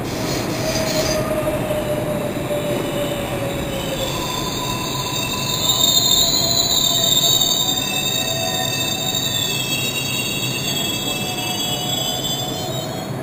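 New York City Subway R142A train pulling into a station and braking to a stop, its running rumble joined about four seconds in by a high metallic squeal of several tones that is loudest around the middle and fades as the train halts.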